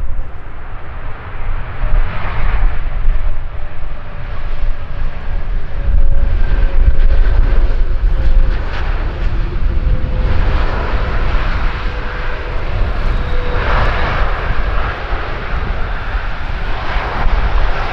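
Airbus A330-300's Rolls-Royce Trent 772 jet engines on the landing roll: a deep, heavy rumble with a faint steady whine, swelling louder and easing off several times.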